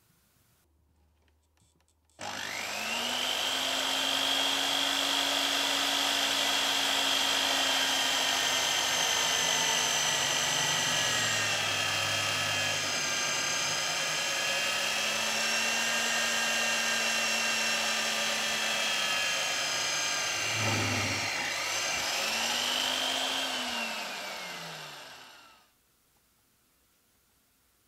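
Drill press boring through a steel plate with a freshly cone-ground twist drill bit. The motor whines up about two seconds in, runs steadily while the bit cuts, and winds down with a falling whine near the end.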